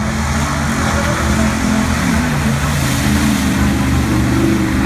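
2017 Ram Power Wagon's 6.4-litre HEMI V8 revving as the truck drives through a mud pit, the engine note rising and falling.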